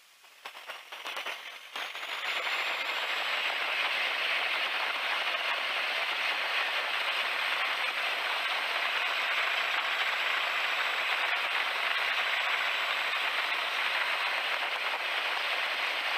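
Light biplane's piston engine brought up to run-up power before takeoff. The noise swells over the first two seconds as the throttle opens, with a faint whine rising in pitch and then holding, and it then runs steadily at high power.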